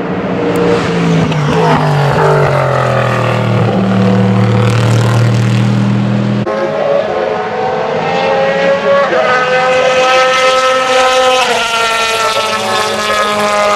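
Race car engines at speed past the trackside. First a car goes by, its engine note falling as it passes. After a sudden cut about six seconds in comes the high-pitched engine of an open-wheel single-seater revving hard, its pitch stepping up and down with gear changes.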